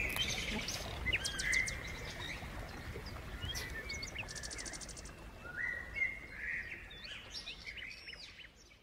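Small birds chirping and calling, with a quick rapid trill about four seconds in; the sound fades out near the end.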